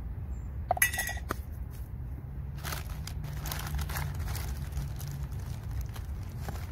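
Plastic packaging crinkling and rustling as it is handled, over a steady low rumble, with one sharp clink about a second in.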